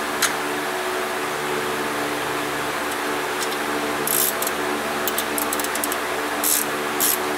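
A wrench clicking against a bolt as the bolts of an A/C-delete pulley bracket are tightened, the clicks starting about halfway through and coming in a quick run near the end. Under it, a steady machine hum like a running fan.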